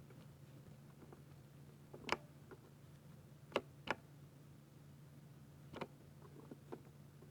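Slow, separate keystrokes on a 60% layout mechanical keyboard: four clear clacks, two of them close together, and a few fainter ticks near the end, over a low steady hum.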